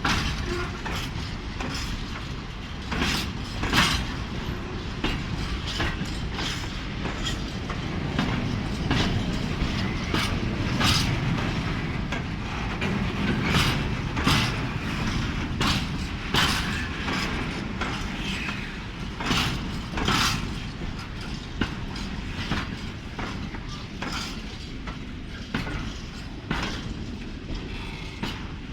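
Freight wagons of a mixed train rolling slowly past, with a steady low rumble and irregular sharp knocks as the wheels cross rail joints.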